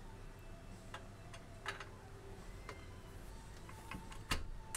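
A few scattered light metallic clicks and taps from a socket and hand tools working a rusted, seized exhaust flange nut, the last click a little louder, near the end.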